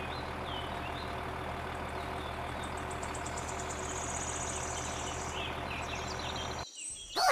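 A motor or engine running steadily with an even low hum, cutting off suddenly near the end; faint bird chirps sound behind it.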